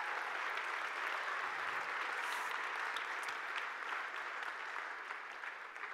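Large audience applauding steadily, the clapping easing off a little near the end.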